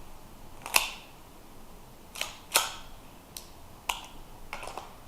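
A pistol being loaded for a make-ready, heard as a handful of sharp metallic clicks and clacks from the magazine going in and the slide being worked.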